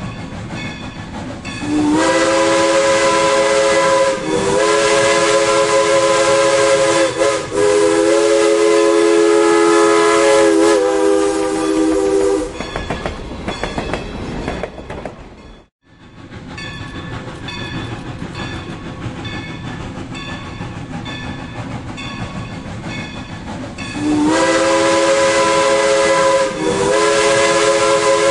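Steam locomotive's chime whistle blown as a long sequence of blasts, about ten seconds, with the pitch dipping briefly between blasts. The train rumbles and clatters along the rails between whistles. The whistle sounds again near the end.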